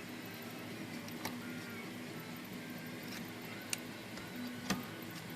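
A few faint, sharp clicks and taps from handling an Erika manual typewriter's shift mechanism while the tension on its shift on-feet is checked with a slip of paper, over a low steady hum.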